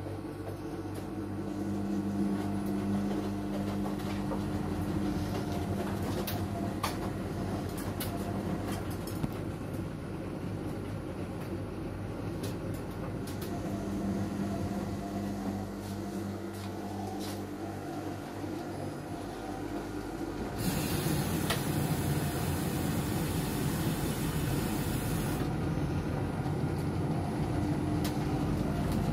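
Household laundry machines running together, an Electrolux tumble dryer with its drum turning and washing machines: a steady mechanical hum with a low tone that comes and goes, a few light clicks, and a louder hiss for about five seconds past the middle.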